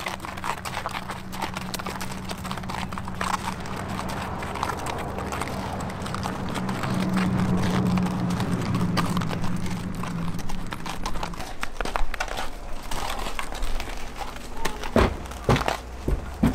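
Horse and pony hooves stepping on a gravel yard, a long run of irregular steps, over a steady low hum that stops about eleven seconds in. A few sharper knocks near the end.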